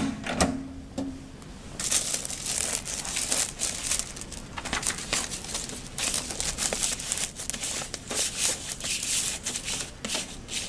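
Clear laminating film and a paper sheet crinkling and rustling irregularly as hands smooth them and feed them into a hot laminating machine's rollers, starting about two seconds in. A single sharp click comes right at the start.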